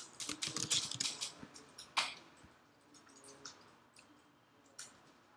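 Typing on a computer keyboard: a quick run of keystrokes over the first second or so, one sharper key strike about two seconds in, then a few faint clicks.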